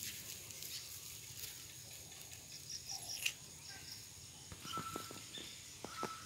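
Outdoor ambience with a steady high insect drone. A few short animal calls come in about halfway through and again near the end.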